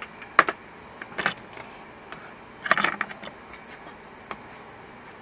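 Kitchen handling sounds: a few sharp clinks and taps of a metal spoon against a plastic bowl as the bowl of bacon and sausage is put down, with a short run of clinks about three seconds in, over a steady background hiss.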